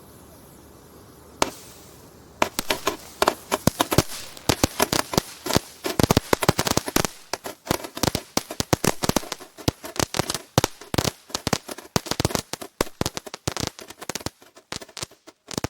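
A 380-shot gatling-gun firework firing: one sharp crack about a second and a half in, then a fast run of bangs, several a second, that grow fainter near the end.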